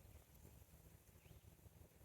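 Near silence: faint outdoor ambience with a low rumble and one faint short chirp.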